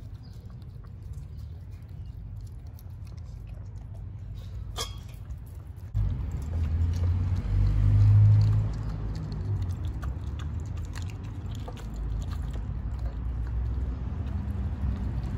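Husky eating from its bowl, chewing and crunching raw chicken backs with sharp clicks. A low rumble comes in suddenly about six seconds in, loudest about two seconds later.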